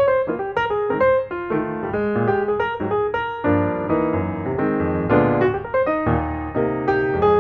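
Background piano music: a steady stream of notes, several a second, with fuller chords in the lower range in the second half.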